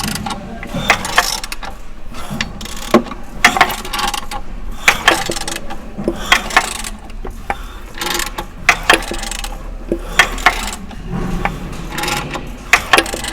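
Cummins ISF 2.8 diesel engine's crankshaft being turned over by hand with a wrench: irregular sharp metallic clicks and knocks, a few a second. It is the engine's knock, which the mechanic traced to the fourth cylinder.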